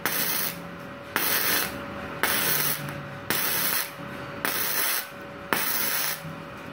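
Gasless flux-core MIG welding arc, 0.8 mm wire on thin hollow steel tube: a crackling sizzle in short stitch bursts, six of them, about one a second, each starting abruptly. The welds are laid in stages rather than one long bead so the thin tube does not burn through.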